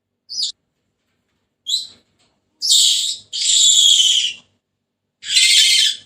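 Senegal parrot calling: two short high chirps, then three longer, loud, harsh calls of about a second each, starting about two and a half seconds in.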